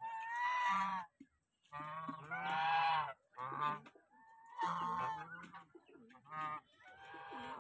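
Domestic geese honking: a run of six or seven honks, each about half a second to a second long, coming roughly once a second.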